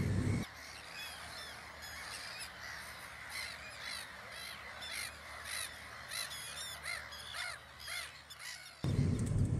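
A breeding colony of black-headed gulls, many birds giving harsh, overlapping calls at once. Low in-car road rumble plays for a moment at the start and cuts back in, louder, near the end.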